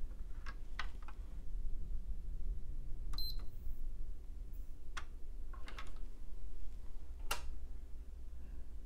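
Scattered light clicks and taps of hands on a bare PS4 SAC-001 mainboard, with one short high beep about three seconds in as the board is powered on while pressure is held on its APU, a test for a bad connection under the chip. A steady low hum runs underneath.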